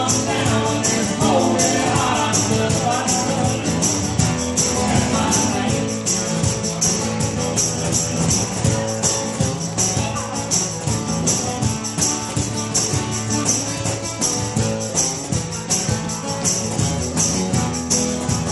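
Live acoustic country band playing: strummed acoustic guitar over a steady, crisp percussion beat, in a passage with little or no singing.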